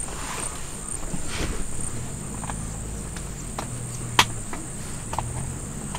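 Insects trilling steadily at a high pitch, with a faint low hum underneath and a few light clicks, one sharp click about four seconds in.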